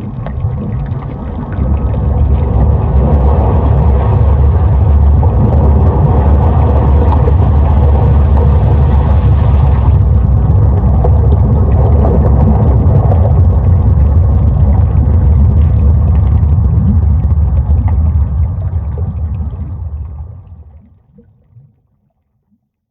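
Volcanic activity sound effect: a loud, deep rumble that swells about two seconds in, holds steady, then fades out near the end.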